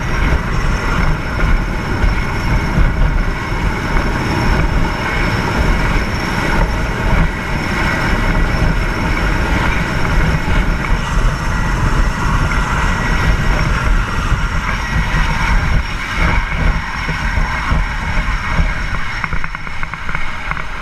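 Helicopter in flight: steady rotor and turbine noise with a thin high whine, and heavy wind buffeting on the microphone.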